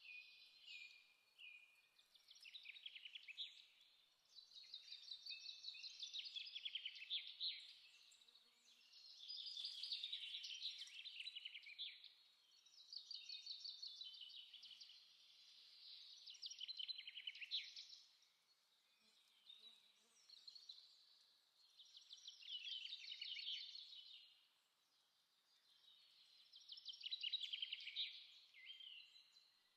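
A small songbird singing faintly in repeated high trilling phrases, each a few seconds long with short pauses between.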